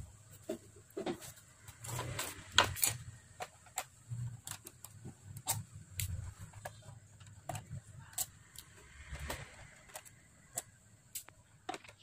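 Irregular clicks and light knocks of a plastic laptop being turned over, set down on a desk and handled with a screwdriver at its bottom-case screws, the loudest knocks about two to three seconds in.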